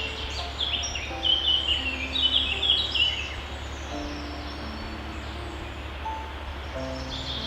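Songbirds chirping in quick runs of high notes, busiest between about one and three seconds in, over soft ambient music of slow held notes and a steady low drone.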